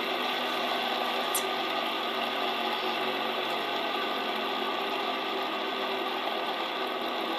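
Metal ring fidget spinner spinning on its bearing while resting on a wooden desk: a steady, noisy whirring hum that holds an even level.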